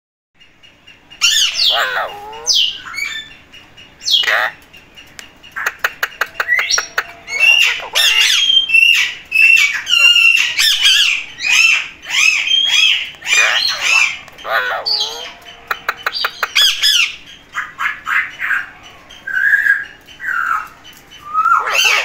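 Several Alexandrine parakeets squawking and calling, harsh calls rising and falling in pitch in quick succession, starting about a second in.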